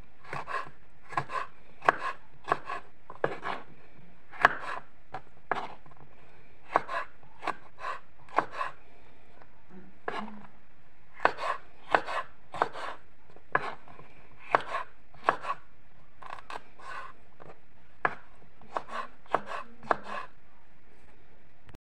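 Kitchen knife slicing bell peppers on a cutting board: a string of sharp, irregular knocks of the blade meeting the board, one or two a second, with a couple of short pauses.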